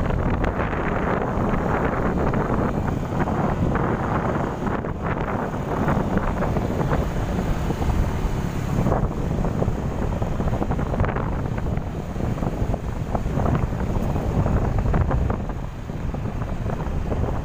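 Wind rushing over the microphone of a moving vehicle, over steady engine and road noise, dipping briefly near the end.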